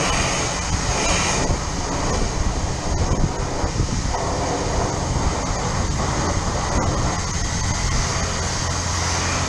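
High-pressure car wash wand spraying water onto a pickup truck's body: a steady hissing rush with a low hum underneath.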